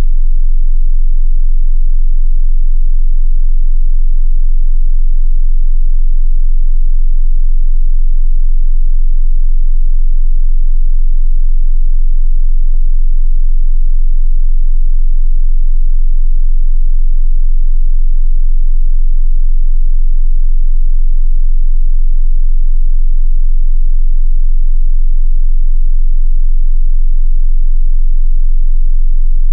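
A steady, loud 22 Hz sine tone, a pure sub-bass test tone that stays unchanged throughout.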